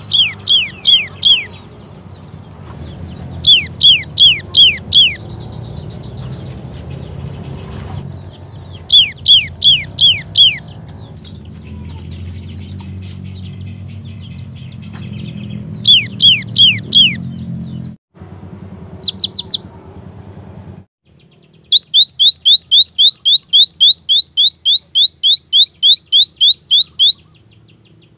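Cinereous tit (gelatik batu) singing: bursts of four or five quick, down-slurred whistled notes every few seconds, then near the end a long, fast run of the same note, about four a second for some five seconds. A low rumble sits underneath for the first two-thirds.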